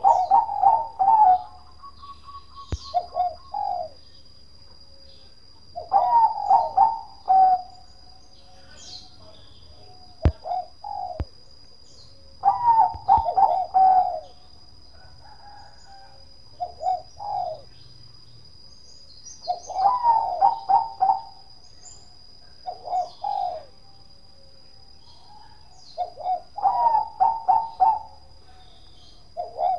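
Caged Bangkok-line zebra dove (perkutut) singing its cooing song: a quick run of rolling notes followed by a few separate trailing coos. The phrase repeats about every six to seven seconds, five times.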